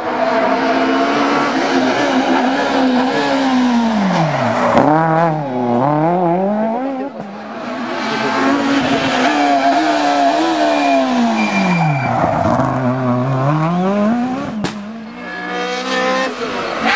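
Rally car engines at high revs on a tarmac stage, their pitch repeatedly dropping and climbing again as the cars brake, change gear and accelerate through the bends. There is a single sharp crack about three-quarters of the way through.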